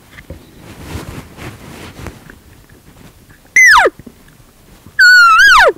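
Two loud elk cow calls, high mews that slide steeply down in pitch: a short one about three and a half seconds in and a longer one near the end, which wavers before falling. Faint rustling before them.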